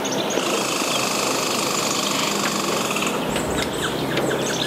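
An outdoor winter soundscape: a steady rattling buzz for the first three seconds or so, then many short, quick downward chirps from small birds calling, over a low steady hum.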